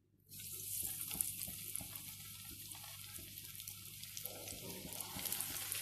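Hot coconut oil sizzling and crackling as battered, crumb-coated onion rings are dropped in to deep-fry. The sizzle starts a moment in, after a brief silence.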